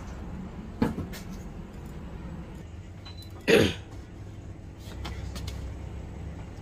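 A short, loud cough about three and a half seconds in, over a steady low hum. There is also a single sharp click about a second in.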